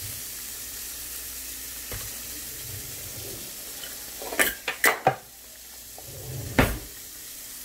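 Asparagus sizzling steadily as it pan-roasts in a skillet, a constant hiss. A few sharp knocks come in quick succession about halfway through, and another near the end.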